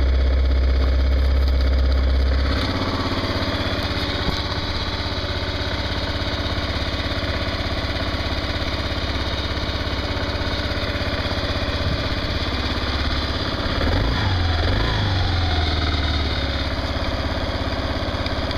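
Kawasaki KLR's single-cylinder four-stroke engine idling steadily after a cold start. About two and a half seconds in, its note drops and it gets slightly quieter.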